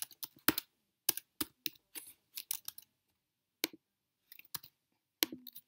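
Slow, irregular typing on a computer keyboard: single sharp key clicks a fraction of a second to a second apart, with a short pause about three seconds in.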